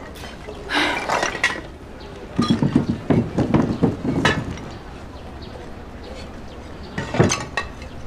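Shards of a broken sculpture clinking and scraping against each other and on a concrete floor as they are picked up and stacked. There is a short rustle about a second in, a longer clatter in the middle, and a sharp clink near the end.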